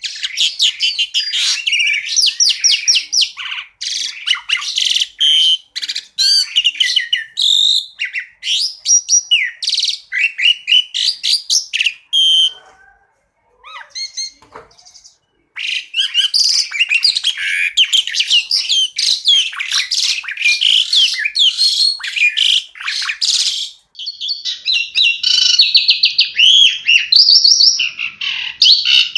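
Songbird song: fast runs of high, sharp chirps and trills in quick repeated notes, broken by a short, nearly quiet pause a little before the middle, then resuming densely.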